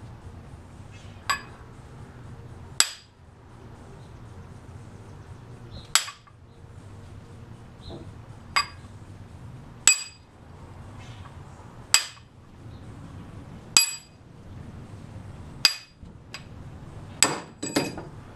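A hammer striking a steel drift punch to drive a mower deck spindle shaft out of its housing: sharp, ringing metal-on-metal strikes about every two seconds, then three quicker clinks near the end.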